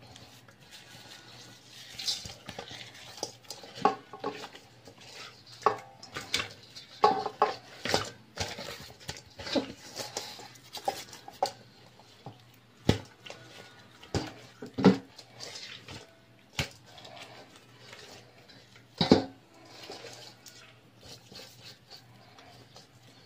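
Raw tuna collars being hand-rubbed with seasoning in a metal bowl: irregular knocks and scrapes of the fish and fingers against the metal, the loudest about 19 seconds in.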